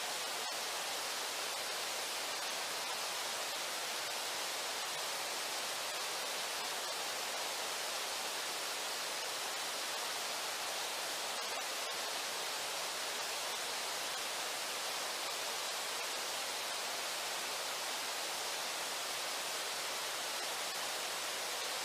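Steady, even rush of the Brooks River's flowing water, unchanging throughout.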